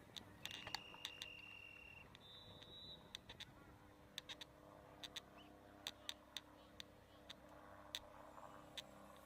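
Faint, near-silent game ambience: a referee's whistle gives one steady blast of nearly two seconds early on, then a short higher note, with scattered sharp clicks throughout.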